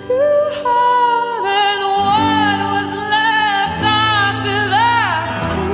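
Female lead voice singing a high, held melody with vibrato and sliding pitch, over sustained acoustic instrumental chords in a live band performance.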